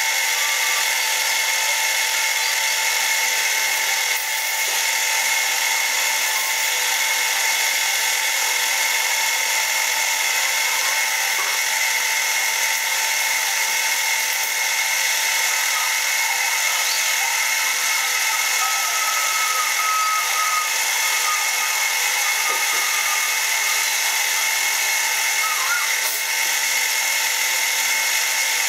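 Warco Super Mini Lathe running steadily, its brushless motor and spindle giving an even high-pitched whine, while the tool takes a light cut on a short aluminium bar held in the three-jaw chuck.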